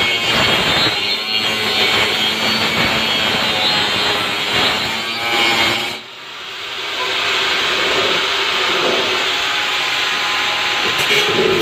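Handheld angle grinder cutting through the top edge of a blue plastic barrel, the disc making a rough, grating noise as it bites into the plastic. About six seconds in the sound drops off sharply, then builds back up steadily as the grinder runs again.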